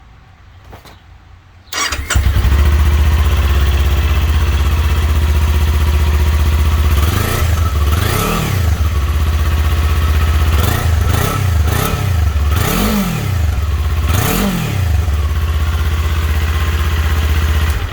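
2021 Kawasaki Ninja 400's parallel-twin engine on its stock exhaust, starting about two seconds in and then idling steadily. It is blipped several times in the middle, each rev rising and falling quickly, and shuts off suddenly at the end.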